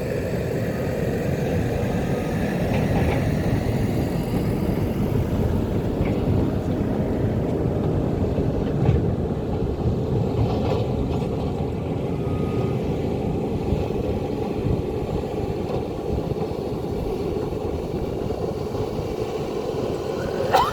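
Excavator's heavy diesel engine running steadily, with a single knock about nine seconds in.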